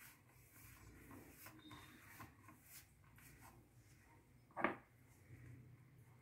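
Faint rubbing and crumbling of flour and ghee worked by hand in a steel mixing bowl, with one short sharp knock about four and a half seconds in.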